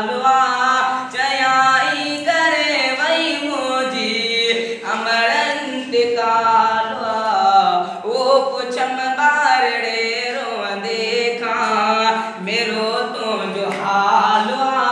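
A student singing, one voice holding long notes that bend up and down in pitch.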